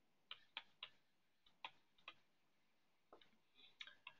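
Faint, irregular clicks of a stylus tapping on a tablet's glass screen during handwriting, about ten in four seconds.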